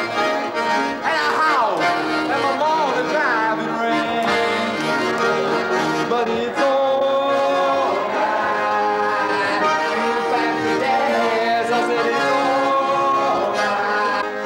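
Piano accordion playing a tune of held chords and changing melody notes.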